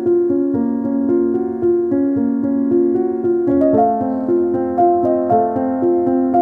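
Background music: a gentle, flowing keyboard/piano melody with steady sustained notes; the harmony shifts about three and a half seconds in.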